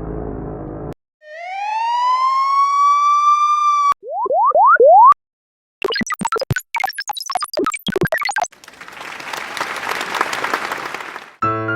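A run of short stock sound effects played one after another: a low buzzy tone, a long rising whistle that levels off, four quick rising chirps, a fast patter of clicks and falling plinks, then a hissing noise that swells and fades. Piano music starts near the end.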